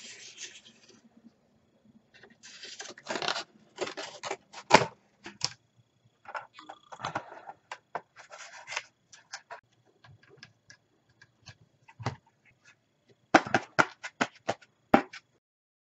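A cardboard disc and a metal loudspeaker frame being handled and tied together on a tabletop: scattered rubbing, scraping and light clicks, with a quick run of sharp knocks near the end.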